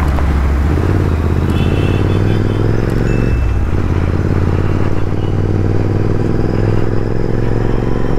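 Royal Enfield Interceptor 650's parallel-twin engine running under way, its note shifting about a second in and again at about three and a half seconds.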